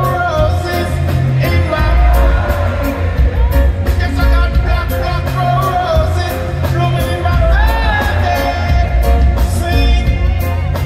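Live reggae band playing a heavy bass line with steady hi-hat ticks, with a male singer's voice sliding and holding notes over it through the PA.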